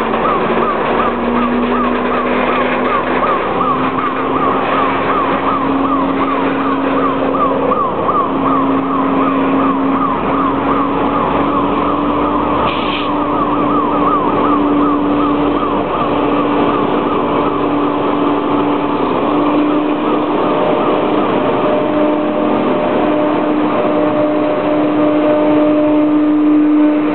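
A low-emission diesel switching locomotive running as it moves up and passes close by, its engine tone steady and rising slowly in pitch. For the first half a high warbling tone rises and falls about three times a second, then fades.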